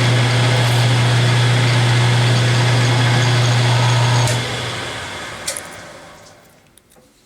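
A shop machine tool running steadily with a strong low hum, switched off about four seconds in and winding down to quiet, with a couple of light clicks as it stops.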